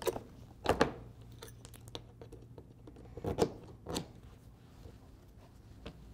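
Steel bolt breaker bars worked in short, quick strokes to snap off the excess bolt ends of a conveyor belt's bolt solid plate fastener splice: scattered metal clicks, with sharper cracks about a second in and again around three and a half and four seconds.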